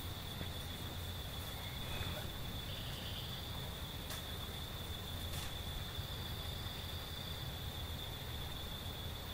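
An insect trilling in one steady high-pitched tone, over a low rumble, with a couple of faint clicks about four and five seconds in.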